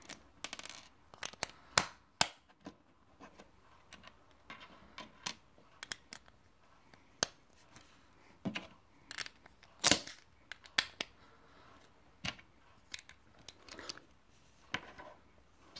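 Plastic Lego pieces being handled and snapped together: irregular sharp clicks and taps as flat tiles are pressed onto a plate, with light rubbing between. The loudest click comes about ten seconds in.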